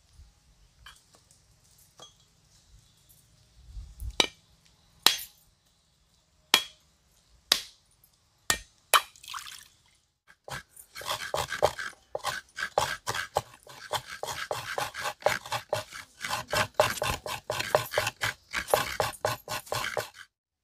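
A heavy curved knife striking a dry coconut's shell: about six sharp knocks roughly a second apart as it is cracked open. From about halfway, fast rhythmic scraping, several strokes a second, as the coconut flesh is grated on a coconut scraper; it stops suddenly near the end.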